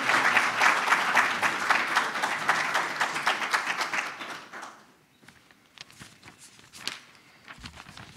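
Audience applauding, the clapping fading from about three seconds in and dying away near five seconds, leaving a few faint isolated clicks.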